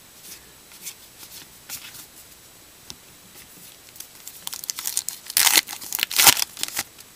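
A trading-card pack wrapper being crinkled and torn open, with light rustling of cards and wrapper first and the loudest tearing and crinkling in the last couple of seconds.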